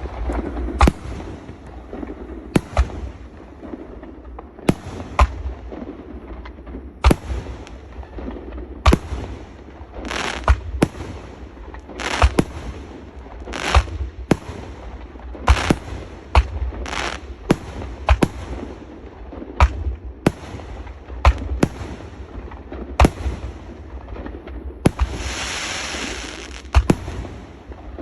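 A 2.5-inch 25-shot shell cake firing: a long run of sharp shell reports, irregularly spaced about one every half second to two seconds. Near the end comes a couple of seconds of dense hissing.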